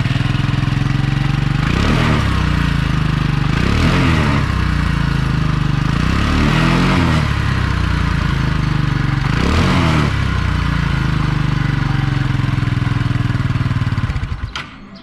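Keeway Victoria 200 scooter's single-cylinder engine idling, heard close at the exhaust muffler, revved four times with quick throttle blips that rise and fall in pitch, then settling back to idle before the sound falls away near the end.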